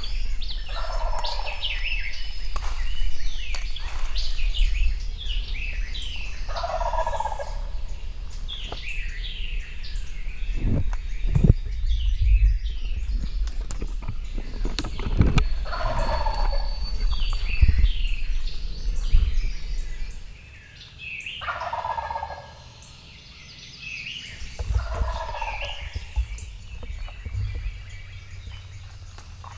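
Wild turkey gobbler gobbling five times, each a short rattling gobble, with songbirds chirping around it.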